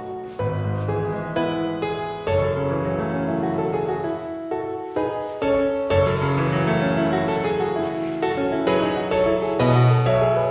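Solo piano music, a flowing run of notes with chords underneath.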